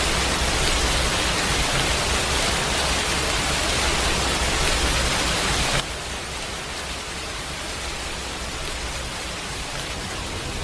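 Steady hiss of water, heavy rain or floodwater, that drops to a lower level at a sudden cut about six seconds in.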